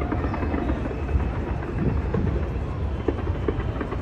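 Fireworks display in a continuous barrage: a steady low rumble of bangs with many short sharp pops and crackles scattered through it.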